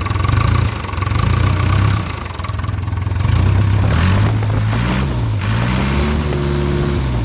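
Cummins four-cylinder non-turbo diesel engine of a Case 580K backhoe running, heard with the hood open. It idles steadily, then revs up about four seconds in, holds higher, and drops back toward idle near the end.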